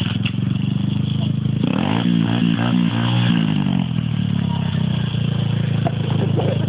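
Pit bike's small single-cylinder engine running at idle. It revs up about two seconds in, holds for a second or so, then drops back to a steady idle.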